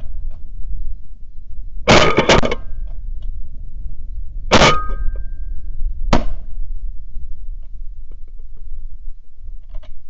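Shotgun blasts from several hunters: a quick volley of shots about two seconds in, then single shots about halfway through and a second and a half later. A low wind rumble sits on the microphone underneath.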